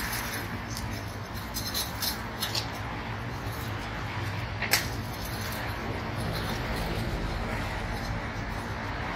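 Steady outdoor street background noise with a low hum, broken by a few light clicks early on and one sharper click a little under five seconds in.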